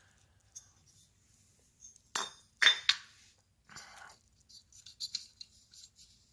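Metal engine parts clinking and knocking as they are handled on a bench: two sharp knocks a little over two seconds in, then a scatter of lighter clicks and rattles.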